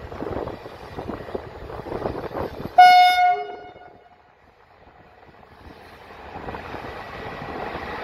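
A Romanian CFR electric locomotive running light sounds its horn once, a short, loud, high blast about three seconds in, with a brief lower note as it ends. A rumble of the approaching locomotive builds again towards the end.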